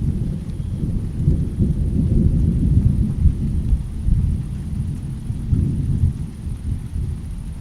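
Rolling thunder: a deep low rumble that swells over the first few seconds, eases off, and builds again briefly past the middle.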